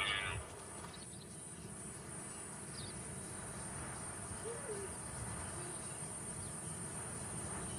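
Steady high-pitched chorus of insects such as crickets, with a brief louder sound in the first half-second and a faint short chirp about halfway through.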